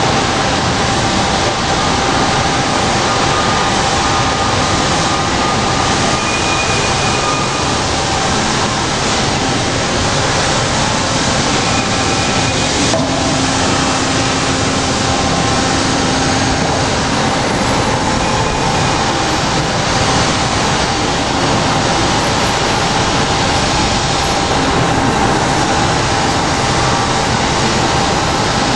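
Steady, loud machine-shop noise: a Hyd-Mech S-25P swing-frame horizontal band saw running, with a faint steady whine through the din.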